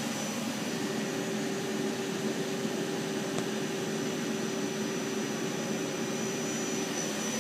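Topper TNL-100A CNC lathe spindle turning steadily at about 1,000 RPM, a steady machine hum with a held whine that settles in under a second in. One faint click near the middle.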